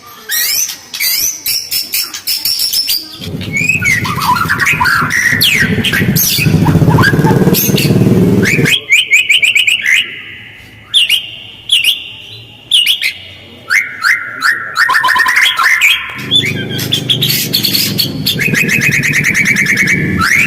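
White-rumped shama (murai batu) singing a fast, varied song of quick whistled phrases and rapid rattling trills, with two long stretches of harsh, rasping notes.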